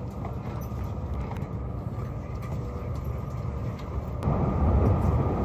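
Steady low rumble of an underground railway platform, then a train's rumble rises sharply about four seconds in and stays loud.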